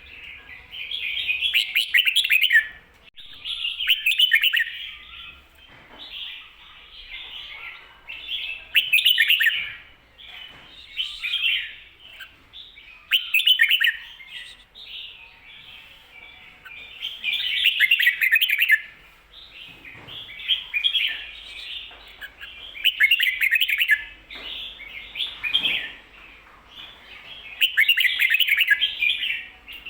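Red-whiskered bulbul singing short, loud, chattering phrases every two to five seconds, with softer calls in between. This is the doubled 'ko-ta-ra' phrase type that is played to teach caged bulbuls.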